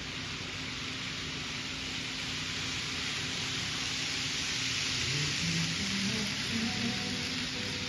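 N-scale model freight train with a model GE ES44AC locomotive running on the track: a steady hiss of wheels on rail and motor whir that grows louder through the middle as the train comes closer, then eases slightly near the end.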